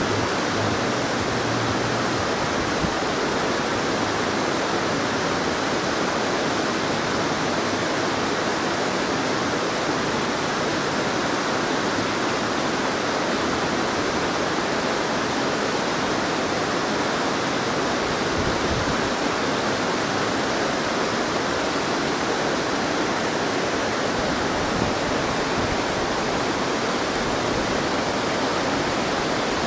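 Water rushing through a dam, a steady unbroken roar of falling and flowing water.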